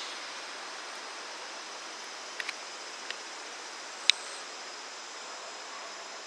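Distant rail-yard ambience: a steady high hiss broken by a few short, sharp knocks, two close together about two and a half seconds in and the loudest a single sharp knock about four seconds in.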